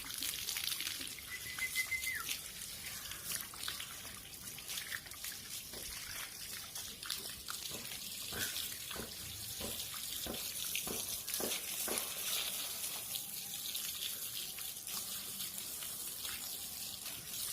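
Water running and splashing as a dog is bathed, with many irregular small splashes. A brief high squeak comes at about a second and a half in.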